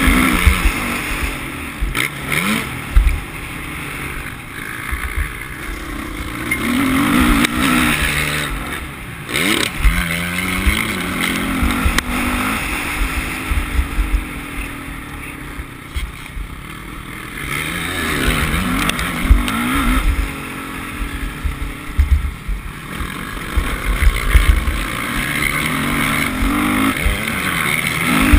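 Motocross dirt bike engine heard from the bike's own onboard camera, repeatedly revving up and dropping back as the rider accelerates, shifts and rolls off around the track. Low thuds and wind rumble hit the microphone on and off.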